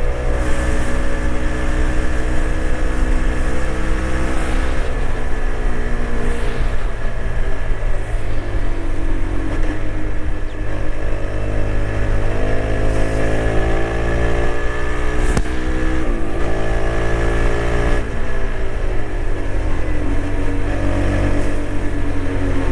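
TVS Apache RTX 300 motorcycle engine pulling at highway speed, its pitch easing off, climbing again, dropping sharply about two-thirds of the way through and rising once more as the throttle and gears change. Heavy wind rumble lies underneath.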